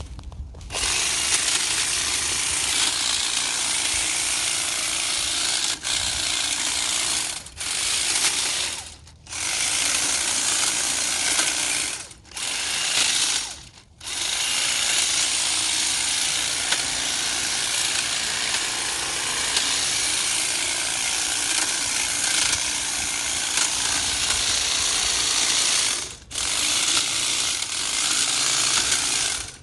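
Hedge trimmer's reciprocating blades running and cutting through thin branches and brush, stopping briefly about six times as the trigger is released.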